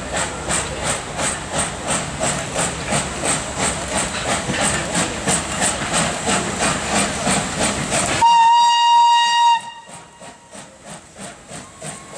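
FS class 625 steam locomotive (2-6-0) working slowly under steam, its exhaust chuffing steadily about three beats a second with steam hissing. Near the end a steam whistle sounds once for about a second and a half, and the chuffing goes on more faintly after it.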